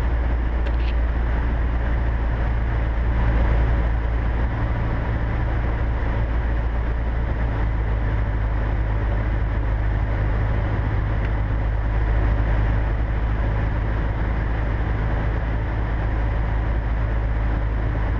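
Cessna 150's four-cylinder Continental O-200 engine and propeller droning steadily, heard inside the small cabin.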